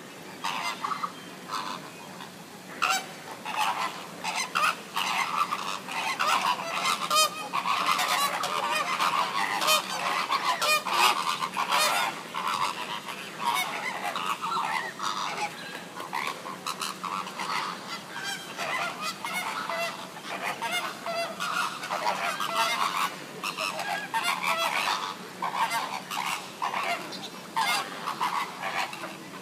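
A large flock of flamingos calling: a dense, continuous chorus of overlapping honking calls, busiest from about five to thirteen seconds in.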